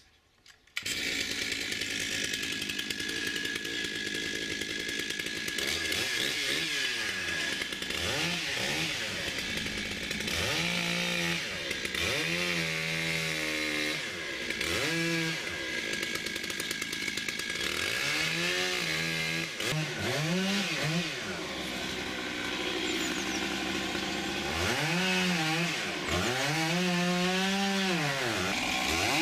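Two-stroke chainsaw starting up about a second in, then cutting into a thick, hollow linden trunk. Its engine pitch rises and falls again and again as it revs and slows in the cut.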